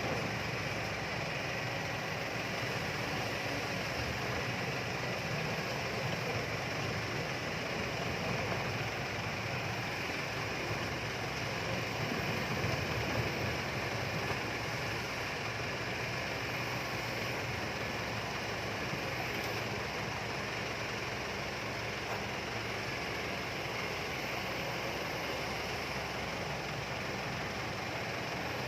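Kobelco excavator's diesel engine running steadily, with a constant, even machine noise.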